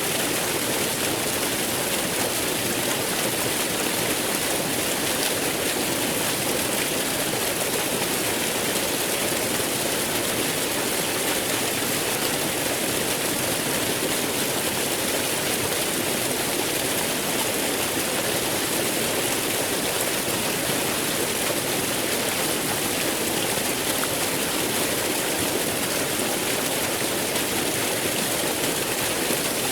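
Waterfall flowing: a steady, unbroken rush of falling water with no changes.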